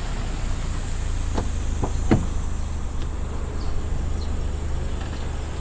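A car's rear door is unlatched and swung open, giving a few short clicks about a second and a half to two seconds in. Underneath runs a steady low rumble and a thin, steady high-pitched insect buzz.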